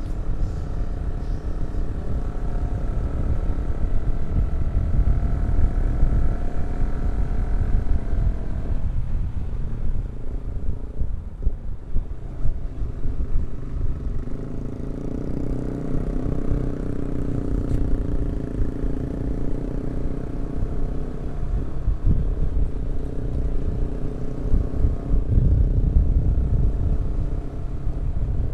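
Yamaha R15 V3 motorcycles running on the road, engine note rising and falling, under a heavy low rumble of wind on the microphone.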